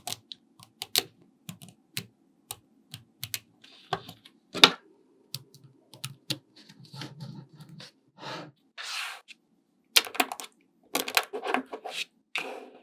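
Small magnetic balls clicking sharply as they snap together and are set in place, at an irregular pace, with a couple of short rustling sounds past the middle and quicker clicking near the end.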